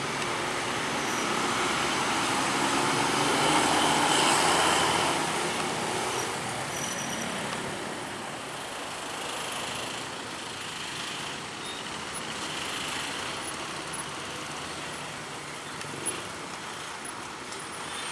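A bus driving past, growing louder to a peak about four seconds in and then fading into steady road traffic.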